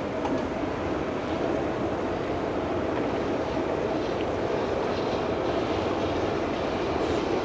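Steady low engine drone of a passing ship, growing slightly louder.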